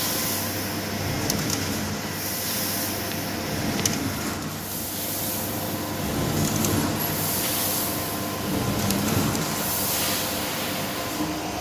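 CNC machine drilling steel boiler plate with a Tungaloy DrillMeister DMC105 indexable carbide drill under coolant: a steady machine hum with bursts of hiss every second or two and a few sharp clicks.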